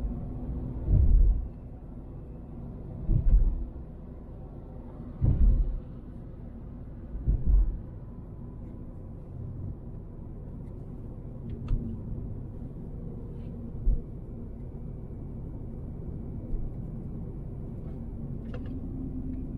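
A car's low, steady driving rumble heard from inside, with four heavy low thumps about two seconds apart in the first eight seconds and a couple of lighter knocks later.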